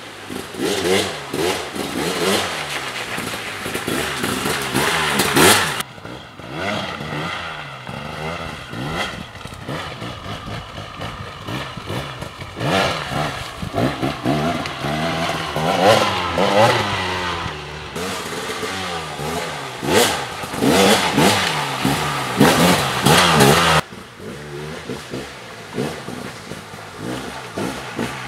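KTM 300 XC-W dirt bike's single-cylinder two-stroke engine, revving up and dropping back over and over as it is ridden through a rocky creek and over stony ground, with clattering under the tyres. The sound cuts abruptly to a new pass three times.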